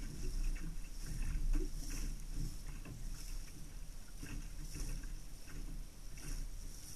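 Water rushing along a Laser sailing dinghy's hull under way, with irregular slaps of small waves against the hull and a steady low wind rumble on the boat-mounted microphone.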